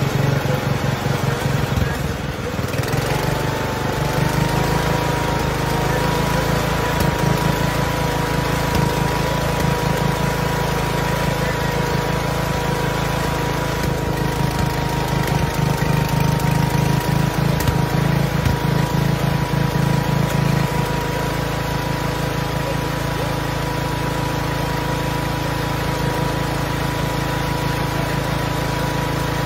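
A small garden-tractor-type gasoline engine running steadily, with a thin, steady whine joining in about two and a half seconds in.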